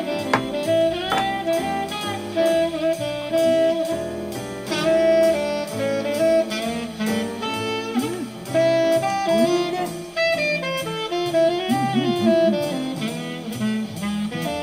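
Background jazz music, with a saxophone playing the melody over a steady drum beat.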